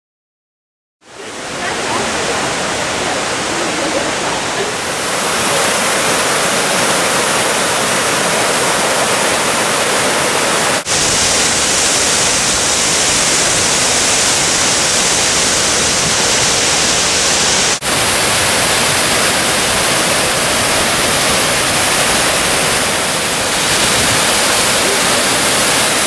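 Large waterfall pouring down a rock face: a loud, steady rush of water that starts about a second in, with two momentary dropouts partway through.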